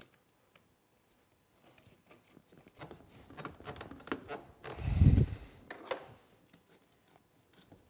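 Snorkel pipe and couplings being handled and fitted together: scattered clicks and rubbing, with a short, louder bump about five seconds in.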